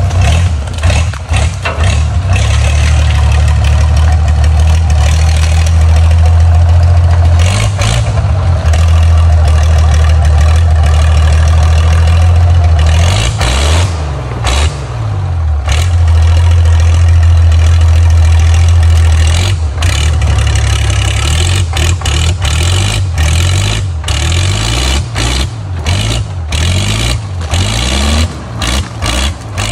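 ZIL-157 6x6 truck's inline-six petrol engine running loud and steady as the truck crawls off-road. Its pitch rises and falls a few times about halfway through. From about two-thirds in, many sharp knocks and clunks sound over the engine.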